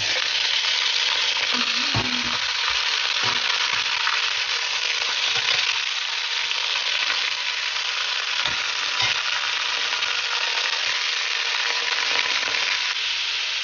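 Pork belly cubes sizzling steadily as they are sautéed in hot oil in a stainless steel pot. A metal spoon stirs them and knocks against the pot a few times.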